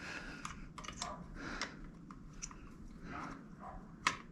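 Faint rustling and light clicks of hands working push-on wire connectors off a motorcycle rectifier, with one sharper click about four seconds in.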